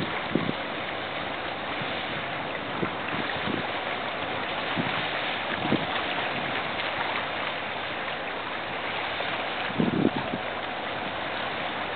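Steady rushing wind and water noise on an outdoor microphone, with several brief low thumps of wind buffeting the microphone, the strongest about ten seconds in.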